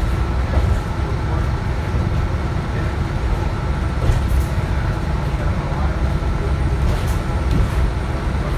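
Inside a Nova LFS CNG transit bus: steady low rumble of the natural-gas engine and road, with a few brief rattles or clicks along the way.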